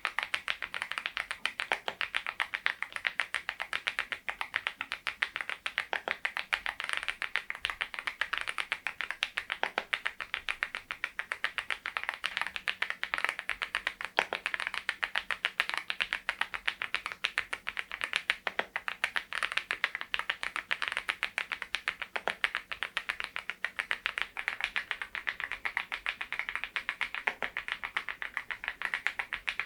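Continuous, fast typing on a Geekstar GKG87R tenkeyless mechanical keyboard fitted with Balhae Blue tactile switches: a steady stream of crisp keystroke clacks, several a second, with an occasional heavier key stroke.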